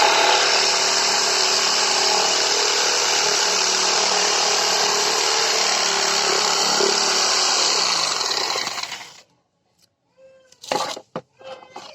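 A 700 W iBELL IBL JS10-70 jigsaw running steadily as it cuts a heart shape, then winding down and stopping about nine seconds in. A few short knocks follow near the end.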